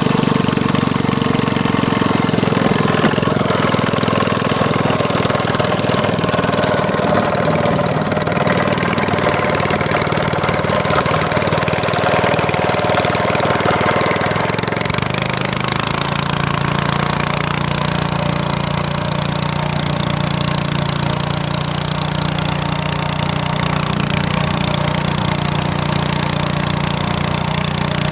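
Small motor engine running steadily. About fifteen seconds in, its pitch drops and settles into a lower, even note.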